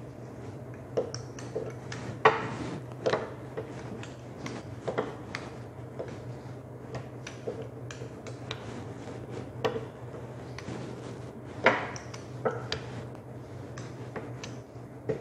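Irregular knocks and taps of a wooden rolling pin and gloved hands pressing and rolling dough on a hard countertop, loudest about two seconds in and again near twelve seconds, over a steady low hum.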